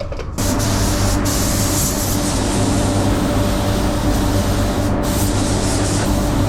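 HVLP spray gun (Walcom Genesi Carbonio) hissing as it sprays a coat of pearl paint, starting just under half a second in, with a steady hum underneath. The high hiss thins briefly about a second in and again near five seconds, as the trigger eases between passes.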